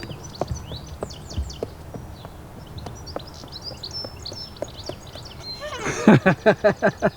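Small birds chirping and twittering, with a few faint clicks. About six seconds in comes a loud, rapid run of about eight pulses, each falling in pitch, over just over a second.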